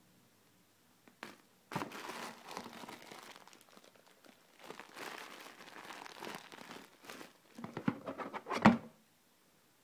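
Plastic wrapping crinkling and a cardboard box rustling as packed items are handled, in two stretches, followed by a few knocks and a louder thump near the end as the box is moved.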